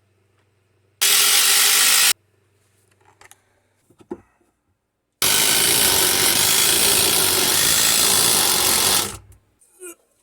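Power driver running in two bursts, a short one about a second in and a longer one of about four seconds from about halfway, driving screws to fasten 2x4s under the workbench. Faint knocks of handling come between the bursts.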